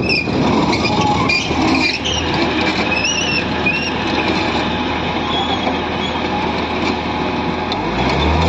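Tata Hitachi 110 crawler excavator's diesel engine running under load while the loaded bucket is lifted and swung, with a steady low hum, a rattling mechanical din and wavering high squeaks. Near the end the engine note rises sharply as it revs up.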